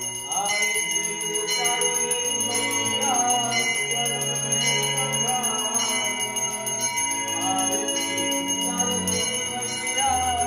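Small brass hand bell (ghanti) rung continuously during an aarti, with devotional music playing behind it.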